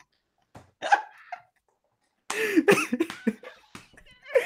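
Two men laughing hard: a few short gasping, hiccup-like laughs, a brief pause, then loud wavering laughter from a little over two seconds in.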